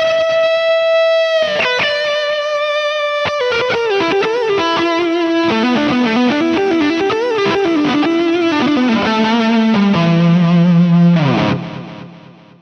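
Distorted electric guitar playing a lead line through the Tonocracy amp-modelling plugin: a long held high note, then quick runs that work their way down, ending on a held low note that drops away and fades out near the end.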